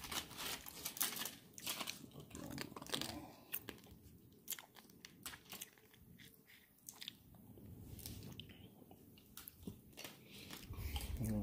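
A person chewing and crunching food close to the microphone: quiet, irregular crisp clicks, a little louder in the first second or two.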